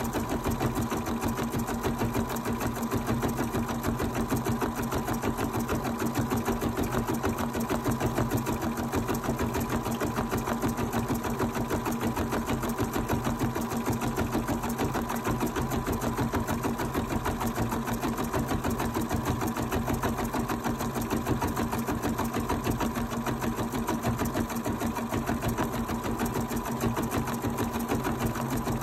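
Bernina 790 sewing machine running in embroidery mode, stitching a design in the hoop: a fast, even run of needle strokes over a steady motor hum, without pause.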